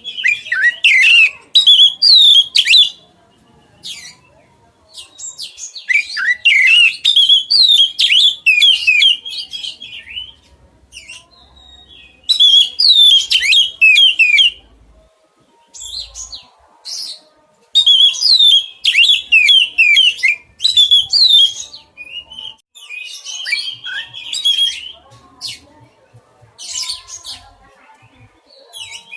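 A songbird singing loud bursts of rapid, varied chirping and sweeping phrases, each a second or a few long, with short pauses between.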